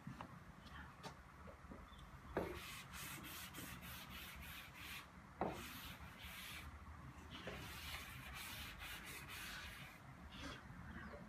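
Chalk rubbing and scratching on a blackboard in several stretches, with two sharp taps about two and a half and five and a half seconds in.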